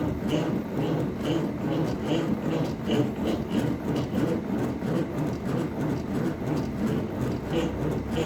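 CNC machine working a wooden board: a steady mechanical running noise with a soft tick repeating about twice a second.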